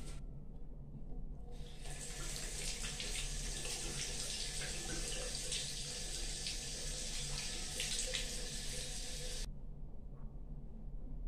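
Water from a bathroom sink tap running into the basin over rinsing hands, a steady rush. It starts suddenly about two seconds in and cuts off about two seconds before the end as the tap is shut.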